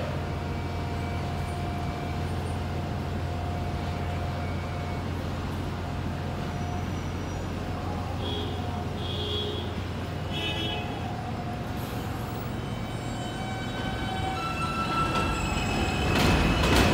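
R160 New York subway train standing at an elevated station with a steady low hum, a few short high chimes about halfway through, then pulling out: its traction motors whine, rising in pitch, and the noise of the cars on the track grows louder near the end.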